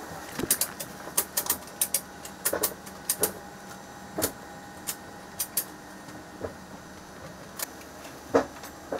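Sharp clicks and clacks of cargo tie-down straps and their buckles as crates are strapped down in an aircraft's cargo hold: a quick run of clicks, several a second, in the first three seconds, then single clicks spaced out, the loudest one near the end, over a steady hum.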